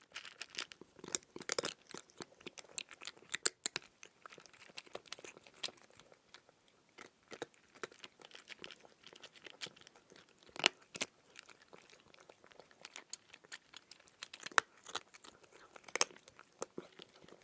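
Close-up handling of Play-Doh modelling dough and plastic tools: a steady run of irregular sticky clicks, crackles and light taps, with a few sharper clicks among them.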